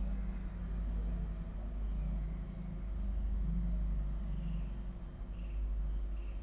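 Cricket chirping in a steady, even rhythm over a low steady hum.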